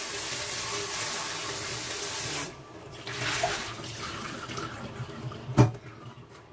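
Kitchen tap running into a stainless-steel sink over a bowl of blanched okra being rinsed, shut off about two and a half seconds in. Then a short splash as the water is tipped out of the bowl, and a sharp knock near the end as the steel bowl is set down in the sink.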